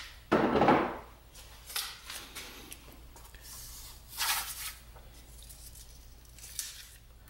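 Masking tape being pulled off the roll and torn, and a paper sheet rustling as it is taped down. There are a few short scratchy bursts, the loudest about half a second in.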